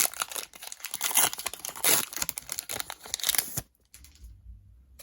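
A foil booster pack being torn open and its wrapper crinkled, a dense crackle of sharp crinkles that stops suddenly about three and a half seconds in.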